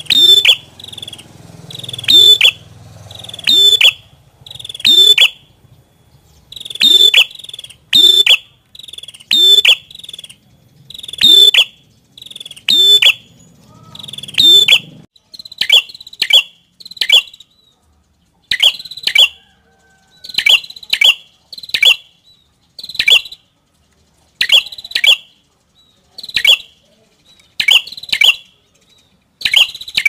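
Red-headed prenjak (prenjak kepala merah, a tailorbird) calling: loud, sharp chirps, each sweeping quickly downward, repeated about once a second. From about halfway through the notes come in quick pairs, and a low background hum stops.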